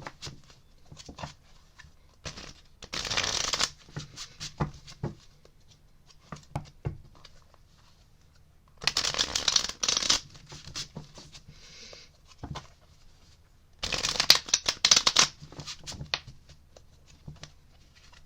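Deck of tarot cards shuffled by hand: three bursts of shuffling, each a little over a second long, with scattered light taps and flicks of cards in between.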